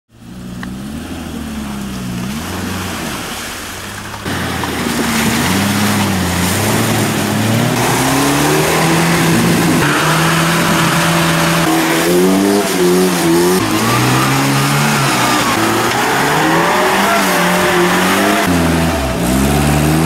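Off-road 4x4 engines revving hard, their pitch climbing, holding and falling again and again as the vehicles churn through mud. The sound gets louder about four seconds in.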